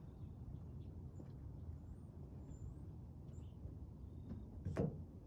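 Outdoor background: a steady low rumble with a few faint bird chirps, and a single knock near the end.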